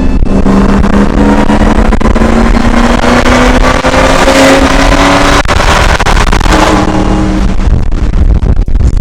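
Supercharged V8 of a 2002 Ford F-150 Lightning race truck heard from inside the cab, pulling hard with its pitch rising steadily, then dropping abruptly about five and a half seconds in and running on at a lower pitch.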